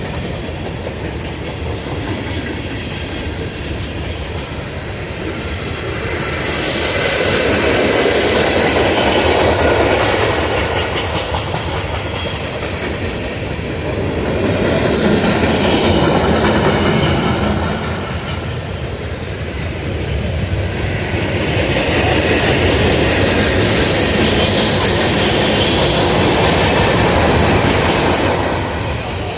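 Freight train cars rolling past on the track, steel wheels on rail, the noise swelling louder three times and easing back between.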